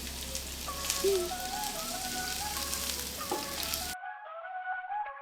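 Chopped cabbage and carrot sizzling as they stir-fry in a frying pan, with a few sharp clicks of stirring. A flute-like background melody comes in about a second in, and the frying cuts off abruptly about four seconds in, leaving only the music.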